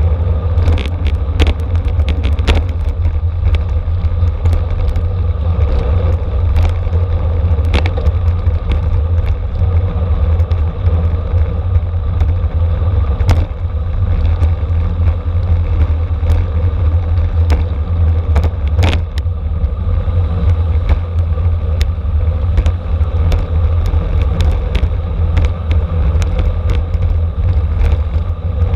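Steady wind rumble on the microphone of a camera moving at racing speed with a bicycle in a criterium, with scattered sharp clicks and rattles.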